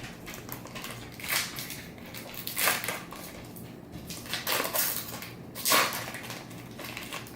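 Trading-card pack wrapper crinkling and cards rustling as a pack is handled and opened, in about five short bursts.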